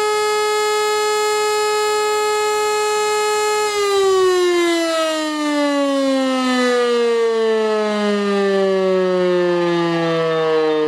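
E57 electric motor siren sounding the Feueralarm test signal: it holds a steady full-speed tone for a few seconds, then winds down, its pitch falling gradually as the rotor slows between blasts.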